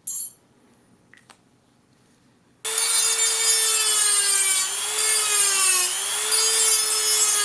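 Small power grinder grinding down thin pieces of steel cut from binder clips, starting about two and a half seconds in and running steadily, its whine dipping slightly in pitch now and then as the metal is pressed against it. A brief noise and a click come before it.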